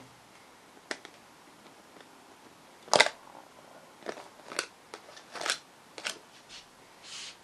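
Palette knife working thick acrylic paint onto a canvas: a series of short clicks and scrapes, the loudest about three seconds in, with a softer, longer scrape near the end.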